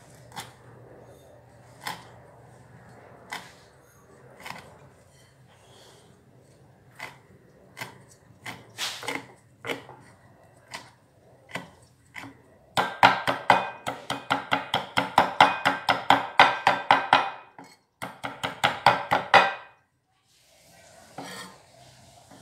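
Kitchen utensil knocks: scattered single clicks and knocks, then two loud runs of rapid, even strikes about six a second, with a brief break between them, and a few faint knocks near the end.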